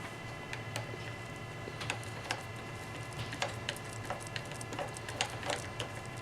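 Light, irregular clicks and taps of small screws and an Allen key being handled and turned on the scooter's adapter parts, over a steady faint hum.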